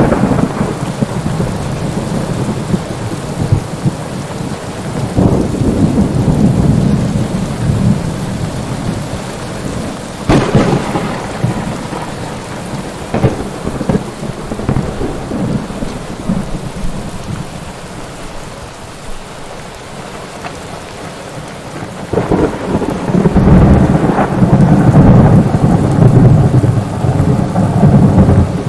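Steady rain with rolling thunder. Rumbles swell a few seconds in and again, louder, near the end, with sharp cracks of thunder about a third of the way through.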